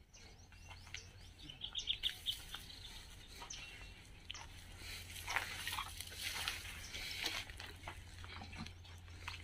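Short high-pitched chirps and squeaks from small animals, with a quick run of them about a second and a half in, over scattered crunching steps on loose stones.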